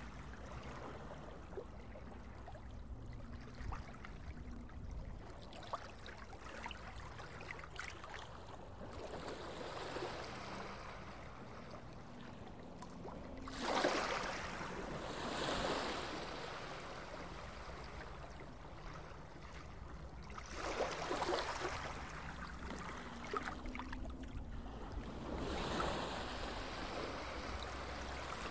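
Open-water ambience: water washing and waves, over a steady low hum, with several louder swells of rushing noise.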